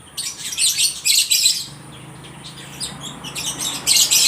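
Several lovebirds chirping and squawking in rapid, shrill calls, answering one another in two busy bouts with a short lull between.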